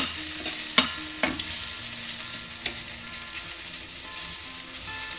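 Chopped garlic sizzling in hot oil in a kadhai as a metal spatula stirs it. A few sharp clicks of the spatula against the pan come in the first three seconds over the steady hiss of the frying.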